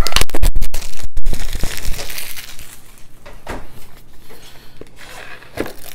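Small cardboard box and its wrapping being torn open by hand: loud crackling and ripping over the first two seconds, then fainter rustling and a few crinkles.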